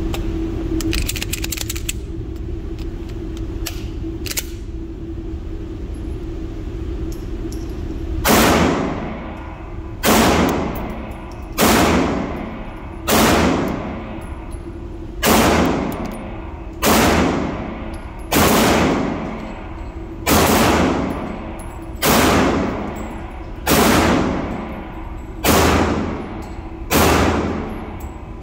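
Single gunshots fired at a slow, steady pace, about one every one and a half to two seconds, each followed by a long echo off the concrete walls of an indoor range. About a dozen shots start some eight seconds in; before them there is a steady hum and a few faint clicks.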